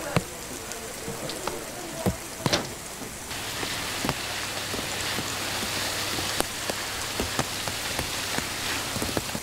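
A deck hose sprays a jet of water across a fishing boat's deck and onto the fish. The steady splashing starts suddenly about three seconds in and runs on, with scattered sharp knocks and clicks throughout.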